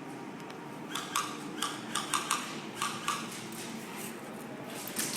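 Airsoft guns firing indoors: a quick string of sharp pops and clicks, starting about a second in and lasting about two seconds, with more shots starting near the end.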